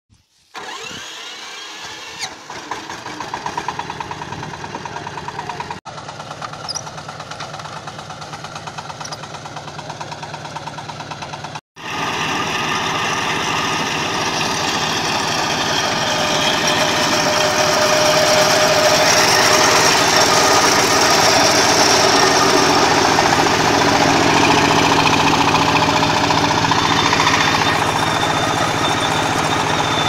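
Heavy farm machinery running: a steady engine drone with several held tones. It breaks off abruptly twice, and from about twelve seconds in it is louder and denser.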